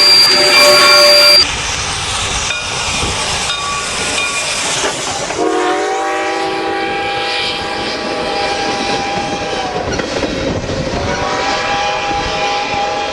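A steam whistle cuts off abruptly about a second in, giving way to the rumble and wheel clatter of a moving train. A locomotive's multi-note air horn then sounds two long blasts, the second starting a little over a second after the first ends.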